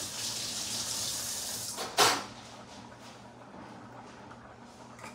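Kitchen tap running into a sink with a steady hiss, then a single sharp knock about two seconds in, after which it goes quieter.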